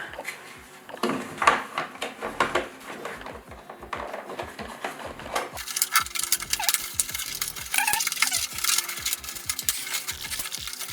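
Plastic glovebox handle being jiggled and pushed into its housing in the glovebox lid, with irregular small clicks and rattles of hard plastic. About halfway through, background music comes in under the handling noise.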